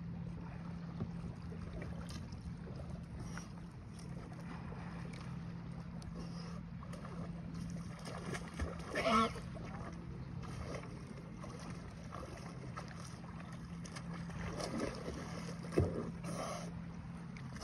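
A swimmer splashing in choppy water beside a sea kayak, with small waves and a steady low hum throughout. Two short louder sounds stand out, one about nine seconds in and a sharper one near sixteen seconds.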